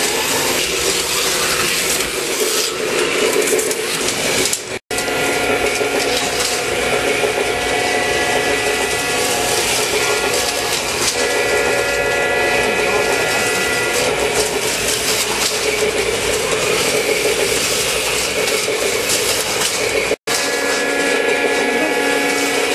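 HO-scale model train and slot cars running: a steady whir of small electric motors and wheels on track, with a few held whining tones. It cuts out for an instant twice, about five seconds in and near the end.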